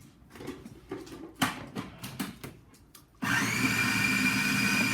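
A few light clicks and knocks, then an electric kitchen blender switches on abruptly about three seconds in and runs steadily with a high whine, blending hummus.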